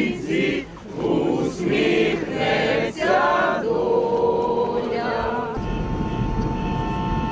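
A group of voices singing a slow song together in phrases with short breaths between them. About five and a half seconds in, it gives way to a steady, unwavering tone over a low rumble.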